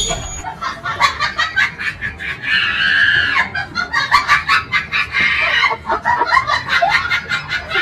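Chickens clucking: many short, quick calls, with a longer squawk about three seconds in.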